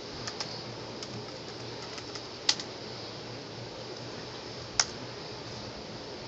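Laptop keys clicking: a few light clicks, then two sharper clicks about two seconds apart, over a steady hiss.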